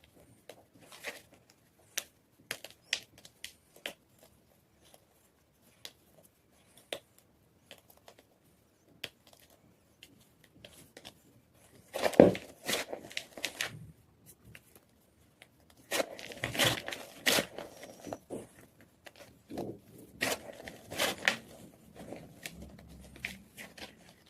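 White gym chalk being crunched and crushed: scattered small crackles and clicks at first, then from about halfway three spells of louder, dense crunching and crumbling.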